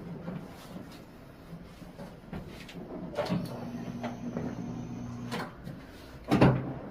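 Soft shifting and handling sounds as a client settles face down on a treatment table, with a steady mechanical hum for about two seconds in the middle and a short louder knock near the end.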